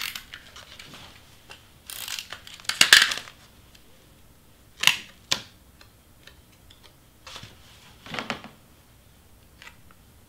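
Paper handling: an adhesive tape runner rolled across cardstock and cardstock pieces rustling and scraping on a cutting mat. A longer rasping stroke comes about two to three seconds in, followed by a few short scrapes and taps.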